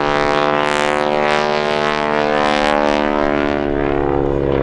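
Propeller airplane's piston engine running steadily during an aerobatic routine, a loud, even drone with a slight, slow shift in pitch.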